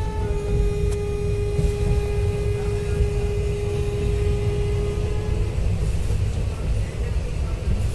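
Shramjeevi Express passenger train running at speed, a steady low rumble of wheels on rails and rushing air at the open coach door. A steady pitched tone sounds over it for about the first five seconds, then stops.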